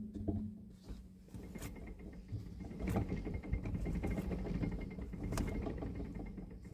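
Irregular knocking and clatter with a few sharp clicks from a Lada Niva Legend's rear wheel as it is worked back and forth: free play in the rear wheel that shows up as knocks.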